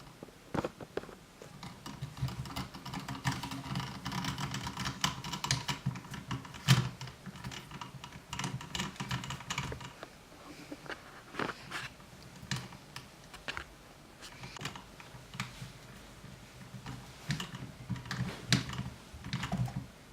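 Small screws being driven into an RC truck's receiver box by hand: a run of light, irregular clicks and rattles of tool, screws and plastic parts, sparser in the middle.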